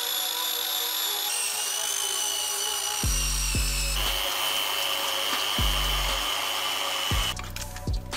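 Power tools whining at a steady high pitch: a drill spinning a rubber eraser wheel on an alloy wheel rim, then a polisher on the wheels. The pitch changes twice. Background music with deep bass notes comes in about three seconds in, and near the end the whine gives way to light clicks.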